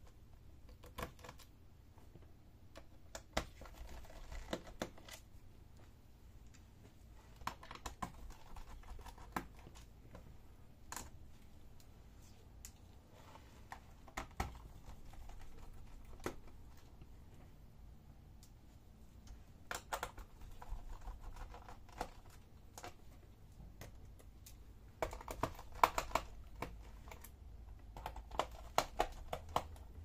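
Irregular small clicks and taps of a screwdriver working out the screws of an HP 250 G7 laptop's bottom panel, with busier runs of clicks about two-thirds of the way in and near the end.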